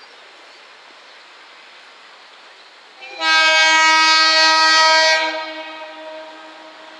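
KiHa 47 diesel railcar's air horn sounding one long blast of about two seconds, a loud, rich tone that starts about three seconds in and then fades away.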